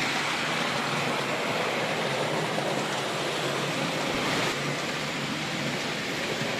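00 gauge model train running on the layout: a steady rushing rumble of wheels on track with a faint low motor hum.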